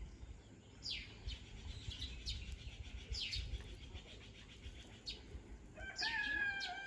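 Birds chirping: a few short, high chirps that sweep downward, then a louder, longer call held at a steady pitch near the end.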